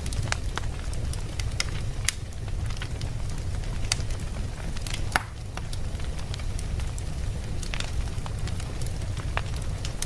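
Wood fire burning in a fireplace: a steady low rumble with sharp, irregular crackles and pops, the loudest pop about five seconds in.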